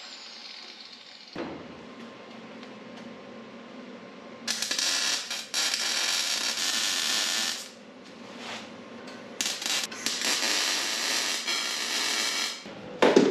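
Wire-feed MIG welding on the steel bumper tubing: a steady crackling buzz in two runs of about three seconds each, with a few short tacks between them. A click and a low hum begin about a second and a half in, and a loud knock comes near the end.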